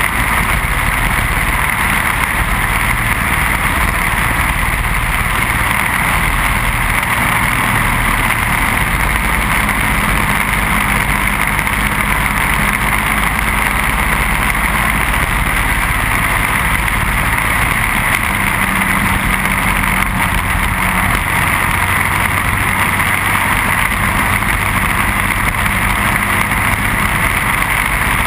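Briggs & Stratton Animal single-cylinder four-stroke kart engine running at racing speed, heard on board under a steady rush of wind noise.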